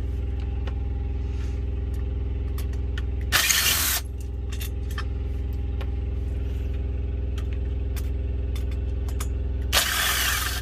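Steady low hum of an idling truck engine. Two short, loud bursts of clatter come over it, about three and a half seconds in and again near the end.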